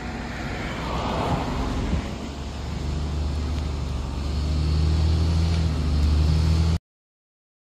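Road traffic: a vehicle passes, then a motor vehicle's engine hum builds steadily louder for several seconds. The sound cuts off abruptly near the end.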